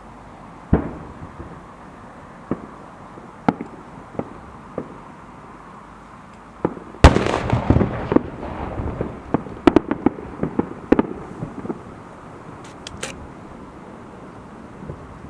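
Aerial fireworks shells bursting: a few scattered booms in the first seconds, then a loud bang about seven seconds in followed by a dense run of crackling pops for several seconds that thins out, with a few last pops near the end.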